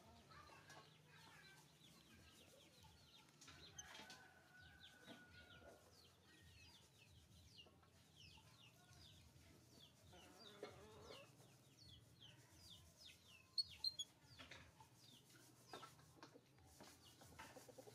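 Faint chickens clucking and peeping: a steady string of short, high, falling peeps with a few clucks.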